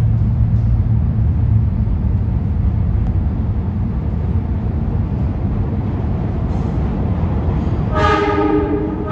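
New York City subway train rumbling through the station, with its horn sounding near the end.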